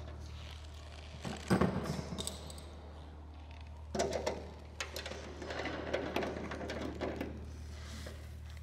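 Clicking, clattering and scraping of metal parts being handled and fitted against an aluminium airframe, in two spells: one about a second in, another from about four to seven seconds in. A steady low hum runs underneath.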